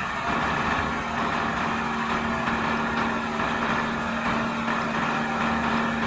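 Renault 8x4 dump truck's diesel engine running steadily while the tipper body is raised, with a steady hum held at one pitch over the engine sound.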